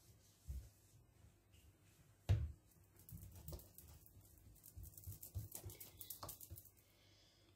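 Hands patting and smoothing flour over a round of dough on a glass platter: a few soft thumps, one louder about two seconds in, then a quick run of light pats and brushing strokes.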